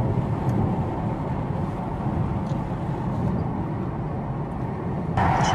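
Steady road and engine noise inside a moving car's cabin. It gets louder near the end.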